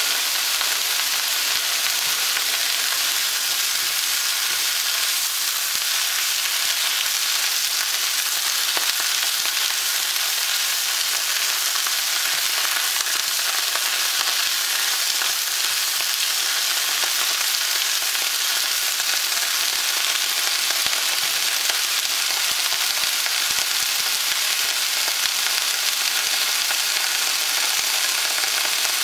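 Cauliflower and snow peas sizzling steadily in hot oil in a nonstick wok, stirred at times with a plastic slotted spatula.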